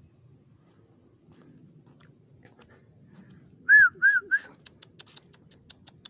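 Sooty-headed bulbul (trucukan) calling: three short loud whistled notes, each rising then falling, about four seconds in. A quick run of faint high ticks follows to the end.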